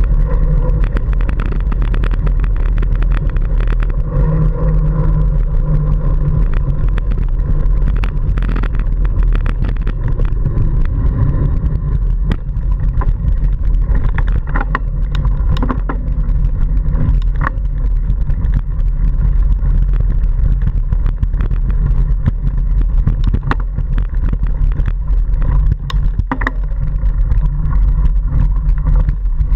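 Wind buffeting the microphone of a camera riding along on a mountain bike, with frequent rattles and knocks as the bike jolts over a gravel and dirt track.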